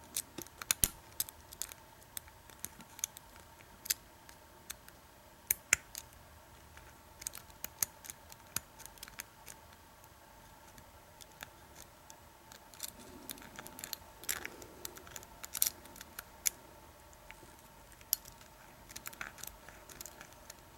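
Lock pick and tension wrench working the pin stack of an American Lock 1100 padlock during single pin picking: irregular small metallic clicks and ticks, some sharper than others.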